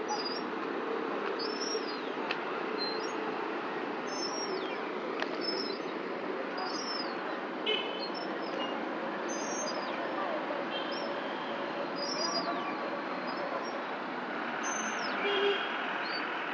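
Steady hum of street traffic, with short high falling chirps about once a second over it.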